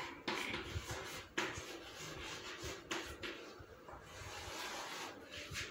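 Chalk writing on a blackboard: faint scratching with a few sharp taps spread through.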